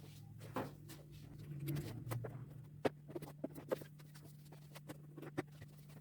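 A series of light, irregular clicks and knocks over a steady low hum.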